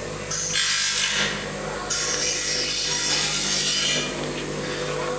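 Two long spells of harsh rasping noise from tool work in the workshop, the second lasting about two seconds, over a steady low hum.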